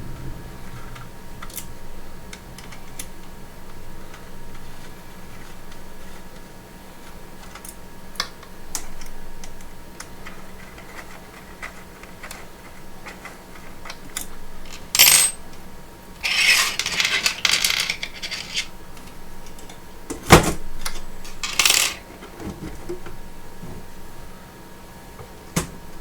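Hand work on the bottom panel of a resin 3D printer: small clicks and metallic clinks and rattles, with a louder stretch of rattling just past the middle and a sharp knock about twenty seconds in.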